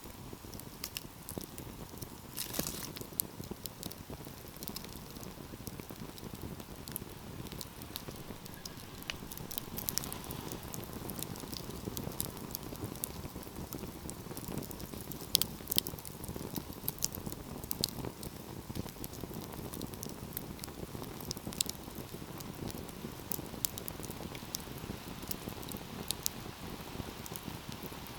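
Wood fire in a fireplace crackling: irregular sharp pops and snaps over a steady low rush of burning, with a few louder pops about halfway through.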